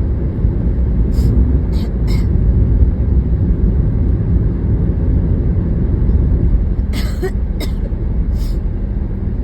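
Steady road and engine rumble inside a moving car, with a woman's short coughs: three about a second in and three more near the end.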